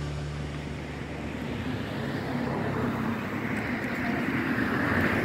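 A road vehicle passing by: an even rushing noise that swells to its loudest near the end, then begins to fade.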